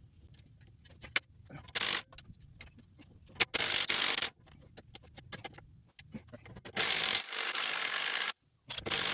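A smaller impact wrench fired in three bursts, the last one longest, on a seized sway bar link nut that will not break loose, with clicks of the tool and vice grips in between.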